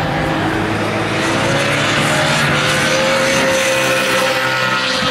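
BMW Z4 GT3 race car's V8 engine running hard, its note climbing slowly through the middle and then holding steady as the car accelerates.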